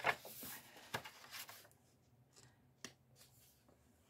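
A coloring book page being turned by hand: paper rustling for about a second and a half, with a sharp flap about a second in and a light tap near the three-second mark.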